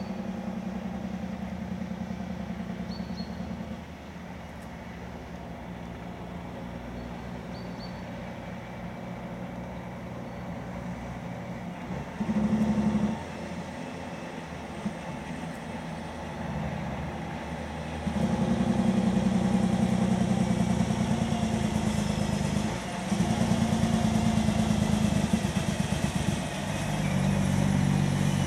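Diesel engine of a loaded off-highway logging truck running as it approaches, a low pulsing exhaust note that swells in several loud surges in the second half as the truck comes close and turns.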